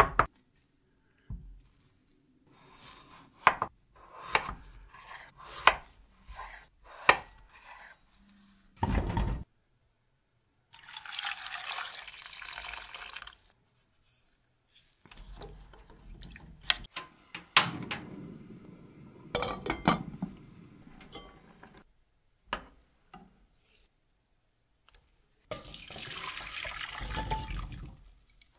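Kitchen prep sounds: a run of short knocks and clicks as peeled potatoes are handled and cut, a heavier thud, then water pouring into a pot. Near the end, boiled potato pieces and their water are poured from the pot into a metal colander to drain.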